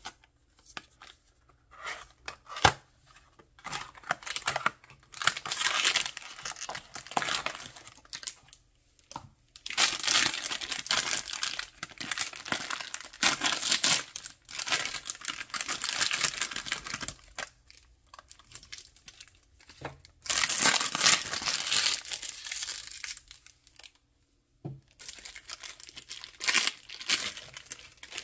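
Foil blind-box bag crinkled and torn open by hand, in irregular bursts of rustling, after a cardboard box is opened with one sharp click about three seconds in. A clear plastic bag rustles near the end.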